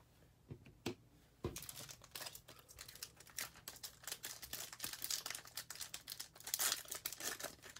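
Bowman baseball card pack wrapper being torn open and crinkled by hand. After a couple of light taps, a continuous crinkling and tearing starts about a second and a half in and grows louder near the end.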